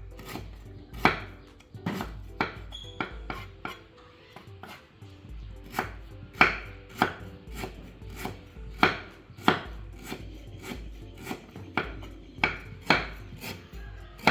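Knife chopping on a cutting board: sharp, separate strokes a little under two a second, pausing briefly about four seconds in, then carrying on.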